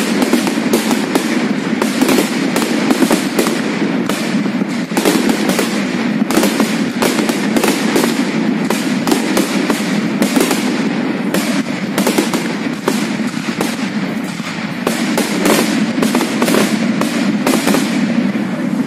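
Aerial fireworks going off in a rapid, unbroken barrage of bangs and crackles.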